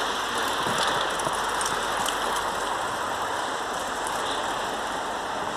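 Steady rushing noise with light ratcheting clicks from mountain-bike freewheel hubs as the bikes are pushed along on foot.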